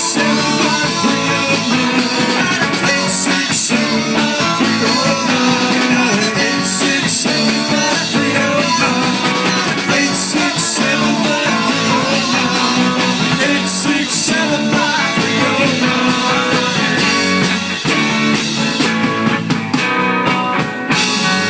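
Live rock band playing: electric guitars and a drum kit, with cymbal crashes recurring every few seconds. The playing thins out briefly near the end.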